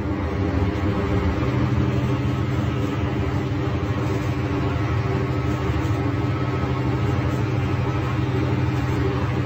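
Scania K310 bus's rear-mounted five-cylinder DC09 diesel engine running steadily, heard from inside the passenger cabin. The engine note firms up slightly about a second in and then holds even.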